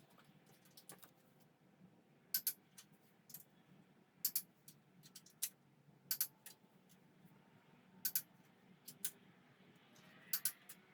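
Sharp clicks from hand tools at work on an engine, mostly in close pairs and coming every second or so, over a faint steady hum.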